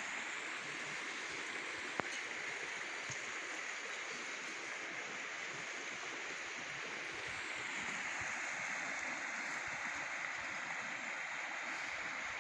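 Steady rush of flowing creek water, with one sharp click about two seconds in.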